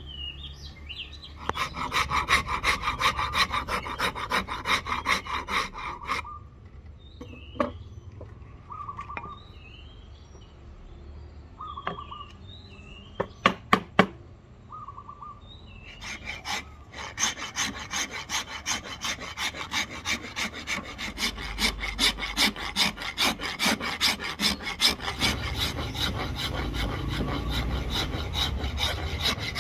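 Hand rasp scraping back and forth over a padauk wood hatchet handle in a fast, even run of strokes. The rasping stops for a stretch in the middle, where birds chirp and a few sharp knocks sound, then starts again and keeps going.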